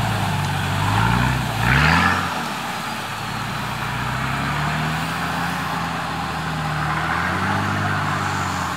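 Off-road 4WD engine revving hard: its note climbs sharply with a short rush of noise about two seconds in, then drops and pulls steadily, slowly rising again.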